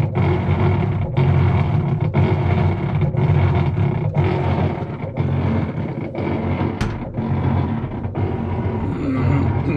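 Whirlpool washer running with its agitator not turning: a loud, steady drone from the motor and drive, dipping briefly about once a second. This noise, with the agitator standing still, is the fault the washer was brought in for.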